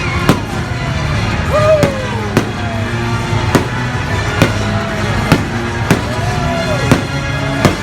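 Fireworks bursting at sea: about nine sharp bangs at uneven intervals, over loud music.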